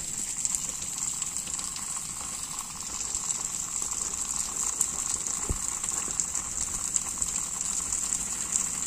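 Steady outdoor background hiss with a constant high-pitched band. There is one faint low knock about five and a half seconds in.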